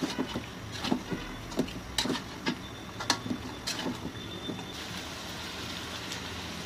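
Metal spatula stirring chicken pieces in an aluminium pan, knocking and scraping against the pan about a dozen times at an irregular pace; from about five seconds in, a steady sizzling hiss from the frying pan.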